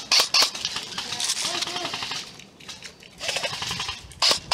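Airsoft guns firing: a few sharp cracks at the start and again about four seconds in, with rustling and faint distant shouting between.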